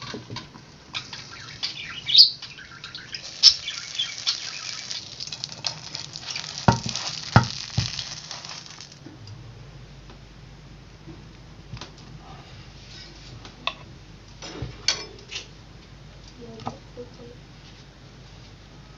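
Tomato-and-egg omelette sizzling in a covered frying pan, with sharp clinks and a few knocks. About nine seconds in the sizzling stops and a fork and knife click and tap against a wooden board as the omelette is cut.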